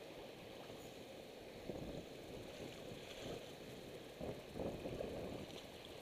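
Wind-driven choppy water sloshing and splashing against a kayak's hull, with louder splashes about two seconds in and again past the four-second mark.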